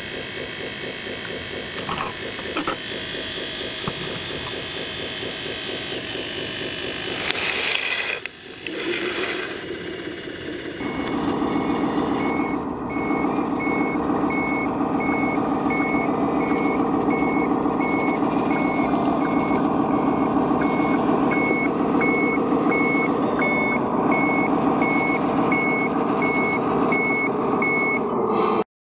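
A scale RC dump truck runs with a steady engine-like drone. After a change about ten seconds in, a scale RC articulated dump truck runs with a louder drone and a reversing beeper beeping about once a second. The sound cuts off sharply near the end.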